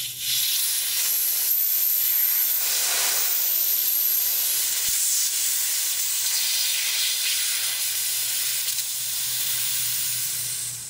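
Compressed air hissing out of the refrigeration compressor's discharge line as its pressure is let off. A thin high whistle rides on the hiss for the first few seconds, and the hiss fades away near the end as the pressure bleeds down.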